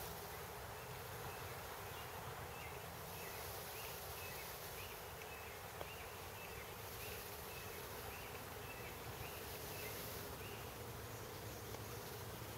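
Honey bees from a newly opened package buzzing in a faint, steady hum. A rapid, even series of faint high chirps runs through most of it.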